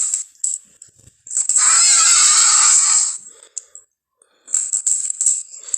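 Movie reptile-monster sound effect: a rasping, hissing screech of about two seconds with a wavering pitch, then a few short rattling clicks near the end.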